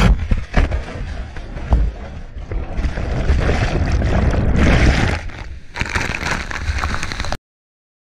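Whitewater of a waterfall plunge churning and rushing over a kayaker's helmet-mounted camera as it goes under, a dense surging wash with a heavy low rumble. It cuts off abruptly near the end.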